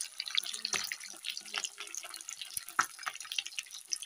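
Two whole tilapia deep-frying in hot oil in a metal pan: a steady sizzle with many irregular crackling pops as the very hot oil spatters. One of the sharpest pops comes a little before three seconds in.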